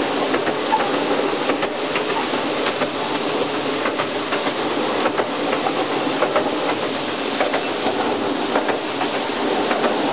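Miniature zoo train running along its track, its wheels clicking and clacking over the rails on a steady rumble, heard from inside an open passenger car.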